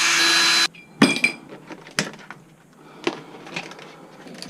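A power tool running in a short burst that cuts off suddenly under a second in, then a handful of separate clinks and knocks from tools and debris, the first with a brief metallic ring.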